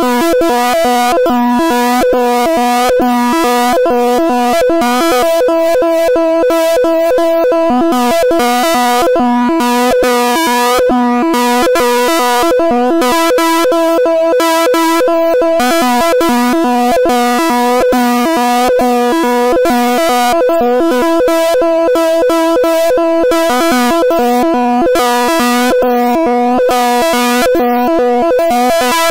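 The stereo audio signal that draws a rotating wireframe cube on an oscilloscope in X-Y mode, heard as a buzzy synthesizer-like drone of several steady tones with a rapid flutter. Its lowest tone drops out for several seconds around the middle and again near the end as the drawing changes.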